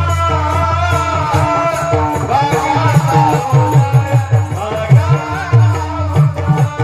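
Marathi devotional bhajan music to Vitthal: a wavering melody over a steady, rhythmic hand-drum beat, with jingling percussion on the beat.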